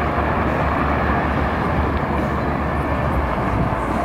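Wind buffeting the camera microphone on an open rooftop: a loud, steady low rumble with no break.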